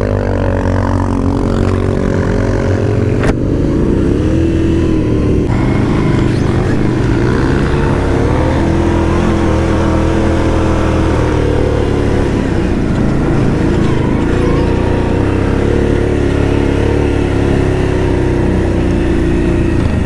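An ATV engine runs while riding a trail, its pitch rising and falling with the throttle. There is a single sharp knock about three seconds in.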